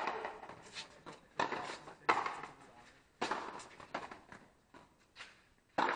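Frontenis rally: a rubber ball cracking off strung rackets and the frontón wall, sharp hits coming roughly once a second with fainter ones between, each trailing off in an echo off the high walls.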